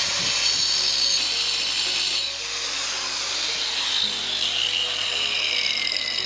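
Small Makita 125 mm angle grinder with a diamond disc cutting into stone, a loud harsh grinding. About two seconds in the cut stops and the motor winds down with a steadily falling whine.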